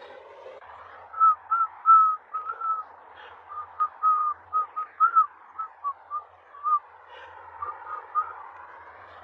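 A husky puppy whining in a long run of short, high squeaks, some bending up or down in pitch, with a brief pause before the last few.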